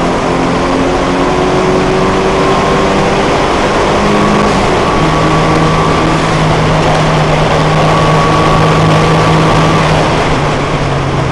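Datsun 510's 1.6-litre four-cylinder engine heard from inside the cabin, driven hard at speed, with wind and road noise. Its pitch climbs slightly for the first few seconds, then holds steady, and it eases off about ten seconds in.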